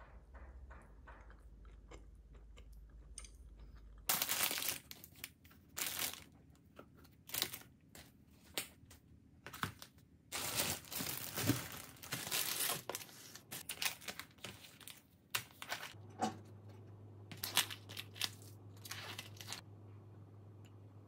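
Irregular crunching and crinkling noises starting about four seconds in, in short and longer bursts, dying away near the end.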